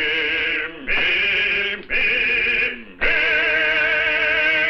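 A boy's voice singing a vocal exercise on command: three short held notes, then a long held note with vibrato from about three seconds in.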